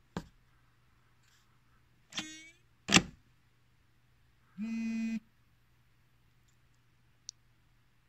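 Zebra TC57 handheld computer being pushed down into its plastic charging cradle: a click, a short plastic scrape and a sharp clack as it seats, followed about a second and a half later by a half-second buzz as the device registers that it is charging. A low mains hum runs underneath.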